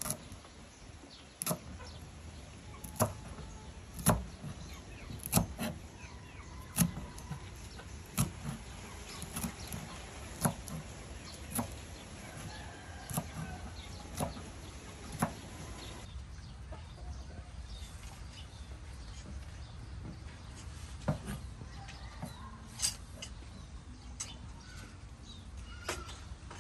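A knife chopping on a round wooden chopping block, in slow, even strokes about one a second, growing fewer and irregular past the middle. Chickens cluck faintly in the background.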